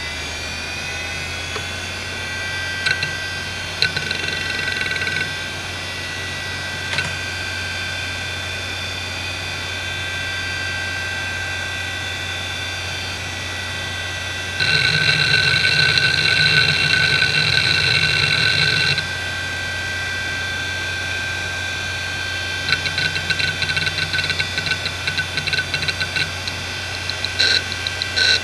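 1996 IBM Deskstar 3 DAQA-33240 5400 rpm hard drive: its spindle whine rises and settles as the platters come up to speed, then runs steadily with a low hum. Over it, the heads seek in short bursts, then in a loud sustained stretch partway through, then as rapid clicking chatter near the end while the drive is benchmarked. The owner reports this drive as failing, with constant sector reallocation.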